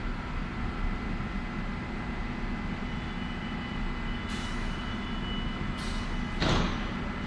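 Nuremberg U-Bahn DT1 train standing at the platform, its on-board equipment humming steadily, with three short hisses of air about four, six and six and a half seconds in, the last the loudest.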